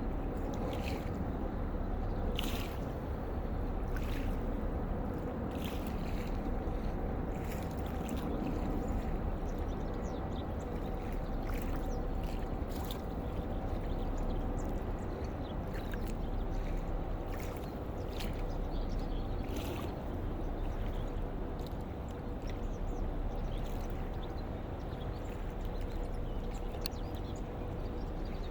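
A river boat's engine runs steadily with a low rumble and an even hum, and short clicks are scattered throughout.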